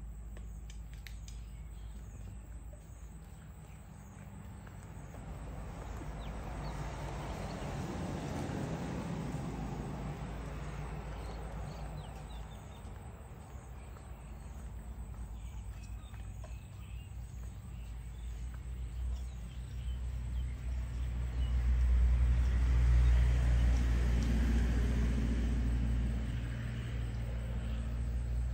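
Low engine rumble of a passing motor vehicle, swelling and fading twice, louder the second time near the end, with a few faint clicks.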